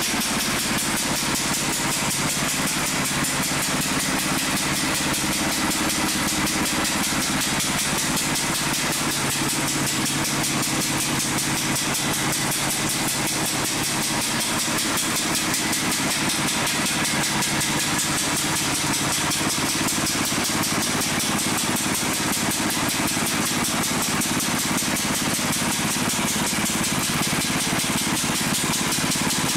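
Small single-cylinder petrol engine running steadily, belt-driving the spinning wire drum of a homemade rice thresher.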